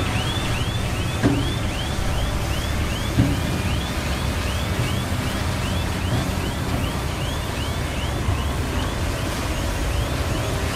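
Heavy construction machine's diesel engine running steadily, with a high rising-and-falling chirp repeating a little over twice a second throughout, and two short knocks about a second and three seconds in.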